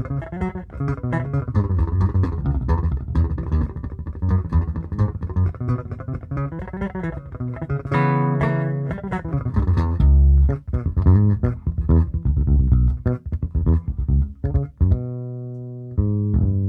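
Electric bass played through a 160-style compressor on a Zoom multi-effects unit, a Magellan preamp and a Hartke TX600 head, heard in the room through a Fender Bassman Neo 1x15 cabinet. It plays a run of plucked notes, then a ringing chord about eight seconds in, and a held note that fades out near the end.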